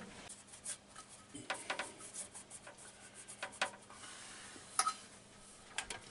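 Faint, scattered light clicks and rubbing as a shower door assembly, glass doors hanging in a metal header track, is handled.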